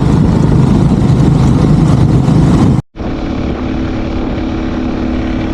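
Sidecar motorcycle running on the road, its engine mixed with a loud rush of wind. About three seconds in, the sound cuts off abruptly and a quieter stretch follows, with a steady engine hum.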